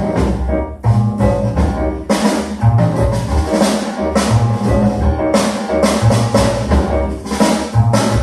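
Recorded music with a drum kit keeping a steady beat over a bass line, played back over hi-fi loudspeakers in a speaker listening test.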